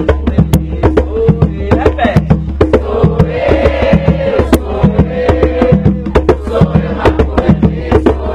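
Hand drums played in a fast, steady batuque rhythm of rapid strokes, with a brief chanted voice over the drumming in the middle.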